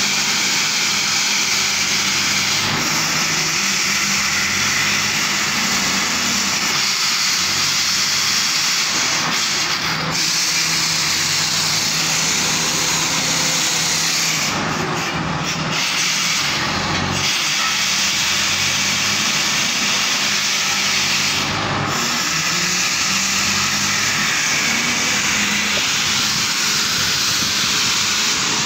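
Truck-mounted borewell drilling rig running: a steady engine hum under a loud, continuous rushing hiss of compressed air as the borehole is flushed.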